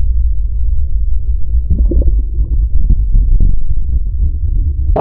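Muffled low rumble of churning whitewater, heard with the camera underwater inside a breaking wave. From about two seconds in, irregular bubbling pops come through over the rumble.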